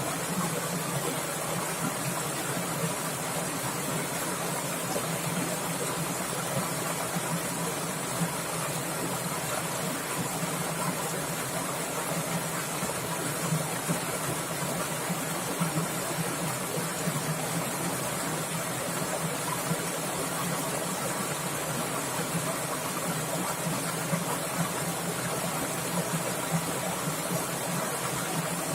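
Fast-running stream water splashing and babbling in a steady rush, with small louder splashes here and there.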